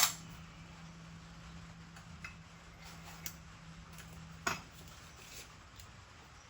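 Spacers clinking as they are stacked onto a finish mower's wheel shaft: a sharp clink at the start, a few light ticks, and another clink about four and a half seconds in.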